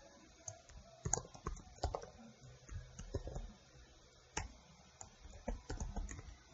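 Typing on a computer keyboard: irregular keystrokes in short runs and pauses, with one louder key strike a little past four seconds in.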